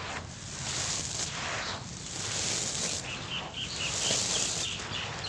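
Dry sand-cement powder crumbled by hand and poured back onto the heap, a grainy hissing patter that swells and fades several times. A quick run of high chirps sounds briefly in the middle.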